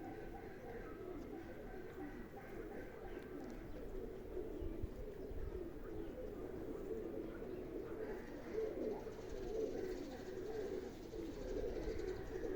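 Several domestic pigeons of the sickle-winged (serpastye) flying breed cooing continuously, their calls overlapping. Strong wind buffets the microphone with a low, uneven rumble.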